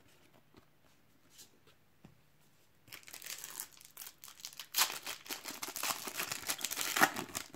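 A foil Panini trading-card pack being torn open and crinkled, starting about three seconds in after a few faint taps, with the loudest rips about five and seven seconds in.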